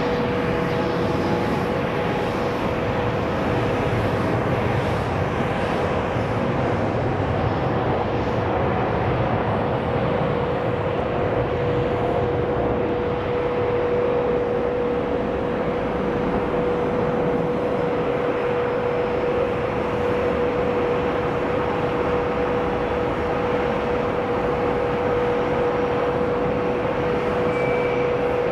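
Jet engines of an Airbus A350-900 (Rolls-Royce Trent XWB turbofans) on takeoff: a steady, even engine noise with a constant mid-pitched hum running through it.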